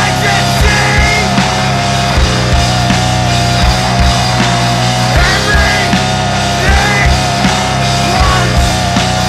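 Loud heavy rock music from a band of drum kit, bass guitar and synthesizer keyboard: a held low bass note under a steady drum beat, with wavering higher notes above.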